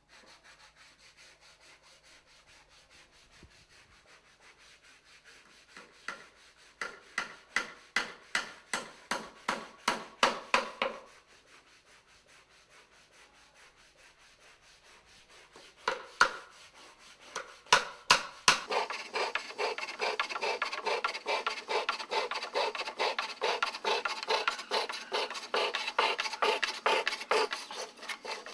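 Teak wood being rubbed smooth by hand in rhythmic scraping strokes, about two a second, coming in bouts. Past the middle it gives way to a fine-bladed fretsaw cutting a thin wooden board in fast, even strokes, about four a second.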